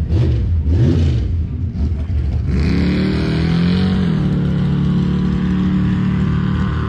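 Lifted mud truck's engine idling with a deep rumble, blipped briefly twice in the first second. About two and a half seconds in, an engine revs up and holds a steady higher speed until near the end.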